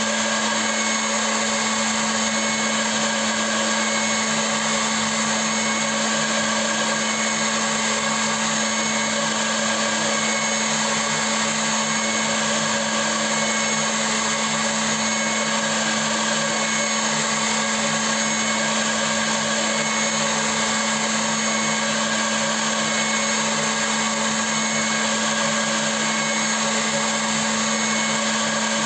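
CNC milling machine running steadily, a constant motor-and-spindle sound with several held tones over an even hiss, unchanging throughout.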